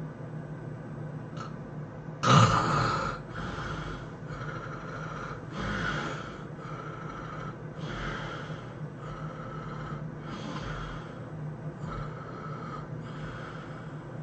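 A sleeping man snoring: one loud snort about two seconds in, then a run of shorter, softer snoring breaths about once a second.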